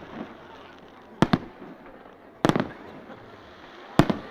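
Fireworks going off in three sharp bursts about a second and a half apart: a quick double bang, then a longer bang with a crackling tail, then a single bang. Between them there is a steady background hiss.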